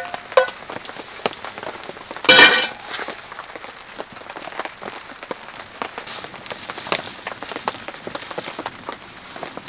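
Rain pattering steadily on the tent fabric, with many small ticks of drops. About two seconds in, a loud short metallic clang rings out as the frying pan is set down on the wood stove's metal top.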